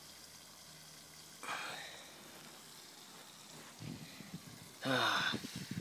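Water leaking and spattering from the blown housing of a booster pump onto grass, a faint steady hiss. A short louder burst of hiss comes about a second and a half in, and a brief voice-like sound near the end.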